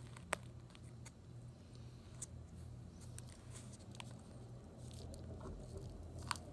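Loose substrate being sprinkled from a small plastic cup into a plastic enclosure and pressed in by hand: a faint, soft patter with a few sharp, light clicks of plastic, the sharpest just after the start and near the end.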